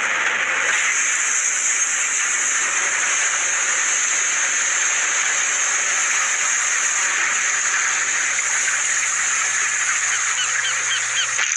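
Cartoon sound effect of water gushing out in a flood: a loud, steady rush with no break, with a few short chirping glides near the end.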